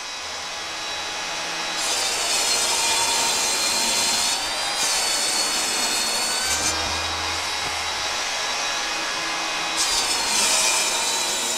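Table saw running and ripping a sheet of panel stock into 12-inch strips. The blade's cutting noise grows louder in stretches, about two seconds in and again near the end.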